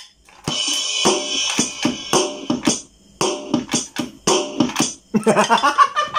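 Portable electronic drum pad being played: a steady beat of sampled drum hits, about two a second, with a cymbal crash near the start and a busier run of hits near the end.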